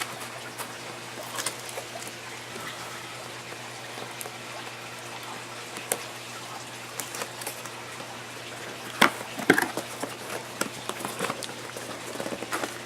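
A cardboard toy box and its plastic packaging being opened and handled: scattered clicks, scrapes and rustles, loudest in a cluster about nine to ten seconds in, over a steady low hum.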